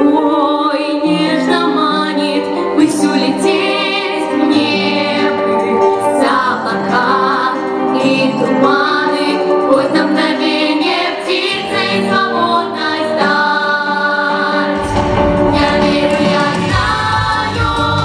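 Girls' vocal ensemble singing a song in harmony into handheld microphones. A low bass part comes in about 15 seconds in.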